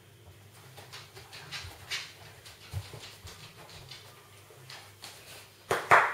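Small sounds of a pet dog close by: soft breathing and scattered light taps of its paws on the floor. Near the end comes a short, sharp, much louder double sound.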